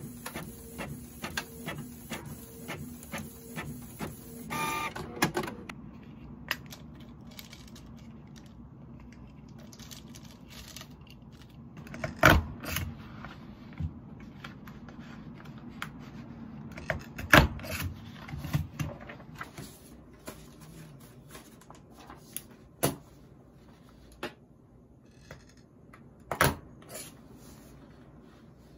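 Canon ink-tank inkjet printer printing a page: evenly spaced clicking of the print carriage and paper feed, about two clicks a second, ending in a short louder burst about five seconds in. Quieter scattered taps and knocks follow, with a few louder knocks later on.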